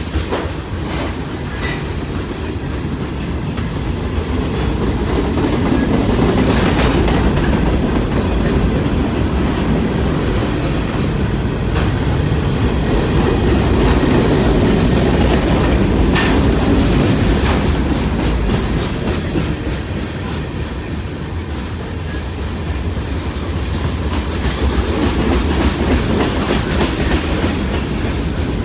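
Long freight train's cars rolling past, a steady rumble that swells and eases, with wheels clicking over the rail joints.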